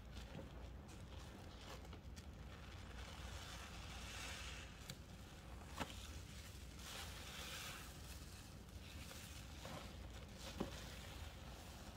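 Soapy sponges loaded with soap and powder paste being squeezed in rinse water: a soft wet squishing that swells twice, with a few sharp clicks.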